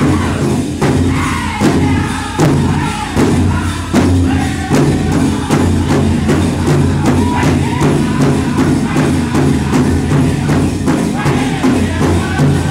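Powwow drum group singing over a big shared drum struck in an even beat. Heavy strokes fall about once every second in the first few seconds, then the beat runs quicker and steady under the voices.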